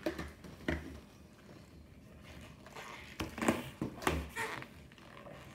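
Long latex modeling balloons being handled and twisted: a few short rubbing squeaks and bumps, the loudest about three and a half seconds in.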